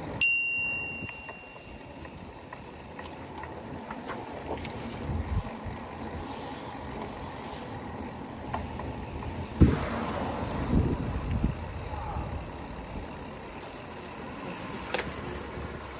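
Riding noise from a bicycle's handlebar, with wind, tyres and street traffic. A sharp ringing ding comes right at the start. Near the end there are high-pitched squeals as the bike slows to a stop, typical of bicycle brakes.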